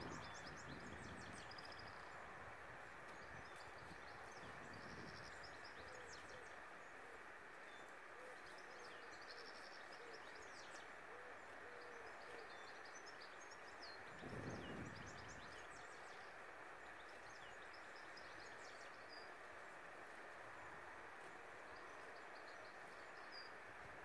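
Faint outdoor birdsong: small birds chirping and twittering on and off, with a string of short, low, repeated calls in the middle, over a steady soft hiss. A brief low rumble rises and fades about two-thirds of the way through.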